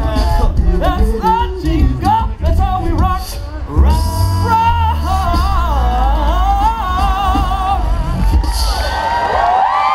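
An a cappella vocal group singing in close harmony over an amplified deep bass voice; near the end the low part drops out and the voices hold a long final chord.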